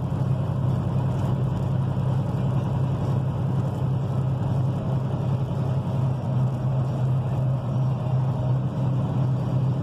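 Steady in-cabin engine hum and road noise from a vehicle cruising along a road, with no change in pace.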